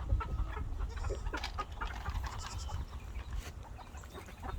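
Chickens clucking, with short scattered calls and squawks.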